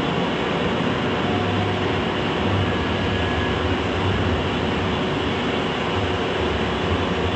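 Three-spindle wood CNC router running: a steady machine noise with a strong low hum, and a faint short whine about three seconds in.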